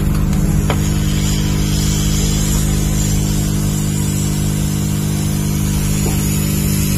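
Hot-air rework station blowing steadily with a constant hum and hiss while desoldering an IC from a set-top box circuit board.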